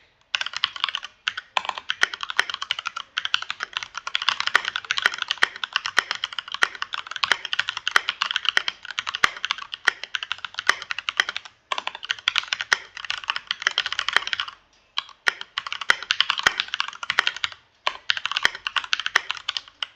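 Fast, continuous typing on a Keychron K2 V2 mechanical keyboard: a rapid stream of key clicks, broken by a few short pauses in the second half.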